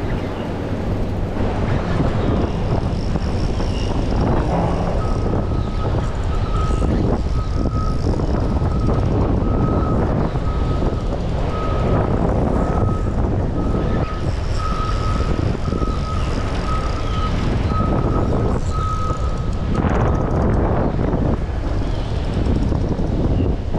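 A vehicle's reversing beeper sounds a steady run of short high beeps, about three every two seconds; it starts about five seconds in and stops a few seconds before the end. It rides over constant rushing wind and water noise, which is the loudest sound.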